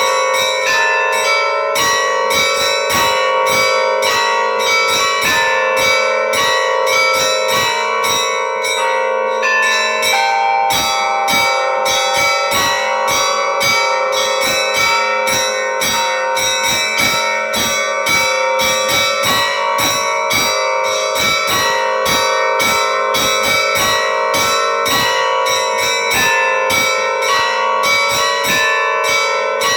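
Church bells ringing in a continuous peal: rapid, closely spaced strikes of higher bells over the steady hum of lower bells.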